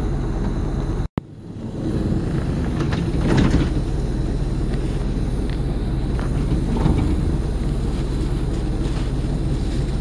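Bus on the move, heard from inside the cabin: a steady engine and road rumble. The sound cuts out for a moment about a second in, then comes back up.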